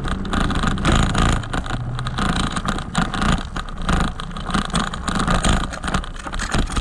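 Bicycle rolling over a gravel road: tyres crunching and the bike rattling, with wind rumbling on the handlebar microphone.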